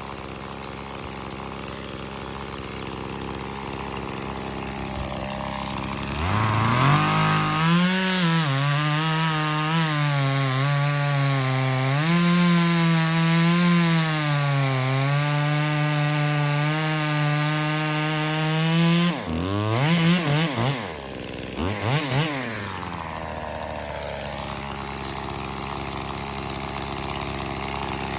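Echo CS-2511T top-handle two-stroke chainsaw idling, then revved to full throttle about six seconds in and held there for some thirteen seconds, its pitch dipping a little as it is loaded cutting wood. It then drops off, is blipped twice more briefly, and settles back to idle.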